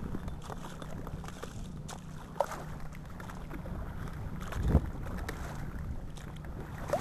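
Small boat's motor running steadily at low speed, a low even hum, with wind on the microphone. A single thump comes a little under five seconds in.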